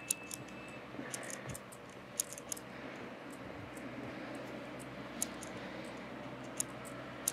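Steady low hum of distant city traffic, with scattered sharp, high clicks and ticks at irregular intervals over it.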